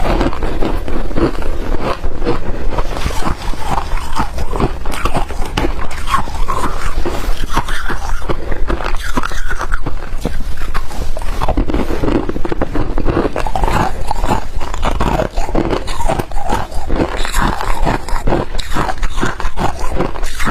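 Close-miked biting and chewing of freezer frost and ice: a dense, unbroken run of crisp crunches.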